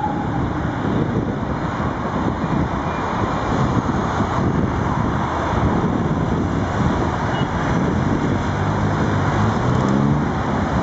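Road traffic: cars driving past with a steady tyre and engine noise. Near the end a vehicle's engine rises in pitch as it speeds up.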